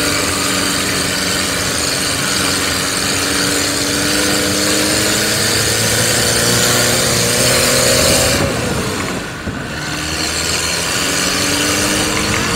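Engine of a four-wheel-drive jeep climbing a steep, rough hill track, heard from the open back. It runs with a steady drone that rises slowly, drops away sharply about two-thirds of the way through, then picks up again.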